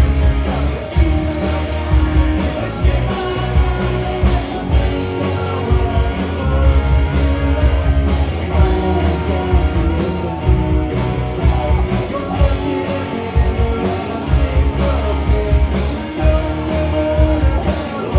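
Rock music with a steady drum beat and heavy bass.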